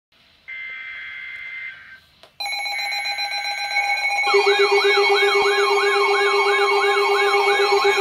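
Several NOAA weather radios sounding their alert alarms at once for an incoming warning: a short tone, then from about two and a half seconds in several steady alarm tones together, joined about four seconds in by a warbling siren-like tone that sweeps up and down about three times a second.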